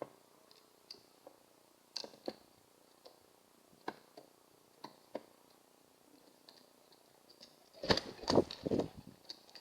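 Pigeons' beaks tapping at an empty bird feeder: sharp single taps, often in pairs, then a louder burst of knocks and scuffling about eight seconds in.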